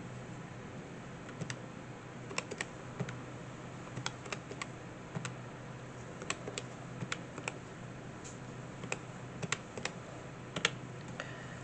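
Plastic keys of a desk calculator tapped with a pen tip: a run of irregular, sharp clicks as a sum is keyed in.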